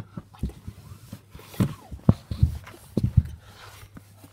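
A string of irregular soft thumps and rustles close to the microphone, some with a brief breathy hiss.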